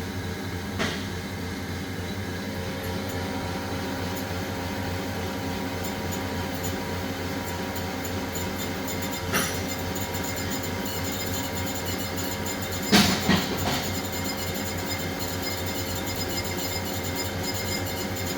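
Haas SL30T CNC lathe running: a steady machine hum with a couple of held tones, broken by three sharp clicks or clanks, the loudest about 13 seconds in.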